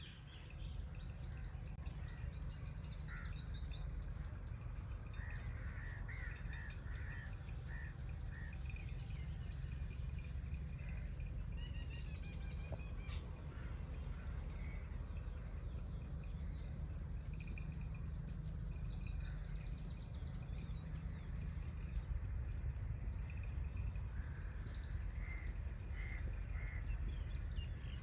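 Songbirds chirping, with rapid high trilling phrases that come back every several seconds and shorter chirps between them, over a steady low rumble.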